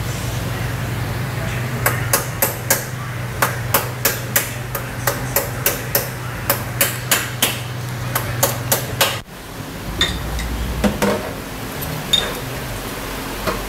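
A hammer striking repeatedly, about three blows a second for some seven seconds. After a sudden cut there are a few scattered knocks. A steady low hum runs under the hammering and stops at the cut.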